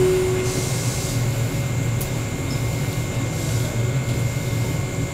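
Steady hum and whir of a standing Tobu electric commuter train with its doors open, its air-conditioning and other onboard machinery running, with a thin high whine over the low drone.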